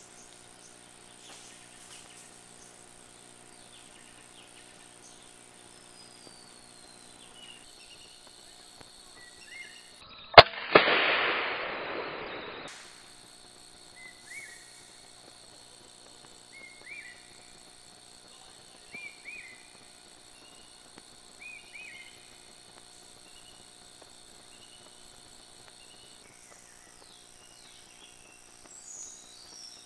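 A single rifle shot about a third of the way in: a sharp crack followed by about two seconds of echoing rumble. Afterward a bird gives a series of short, faint chirps.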